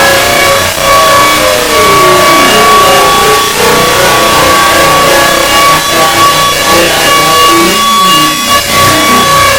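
Very loud engine revving, several pitches rising and falling over a dense, noisy roar.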